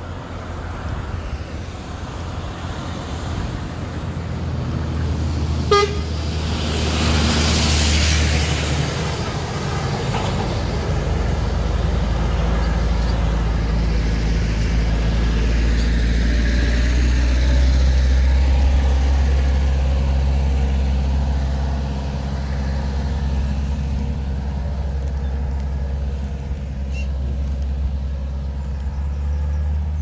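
Motor traffic passing close by on a two-lane road: a short horn toot about six seconds in, then a vehicle rushing past. A steady low engine drone runs throughout and is heaviest in the second half.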